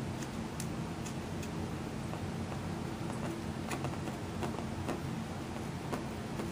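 Scissors snipping through thin clear plastic protective film: a string of short, irregularly spaced clicks over a steady low hum.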